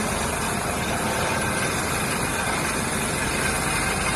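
Helicopter approaching a ship's helicopter deck to land: a steady noise of rotor and engine.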